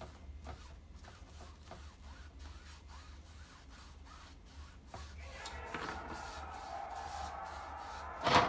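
Paintbrush scrubbing acrylic paint onto a stretched canvas in short rubbing strokes. Faint music-like tones come in about five seconds in, and there is a single sharp knock near the end.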